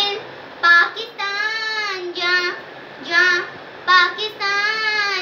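A young girl singing alone, without accompaniment, in short phrases with long held notes.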